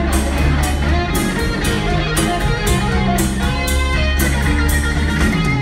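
Live rock band playing an instrumental passage between vocal lines: electric guitar over bass and drums, with a steady beat of about two drum hits a second.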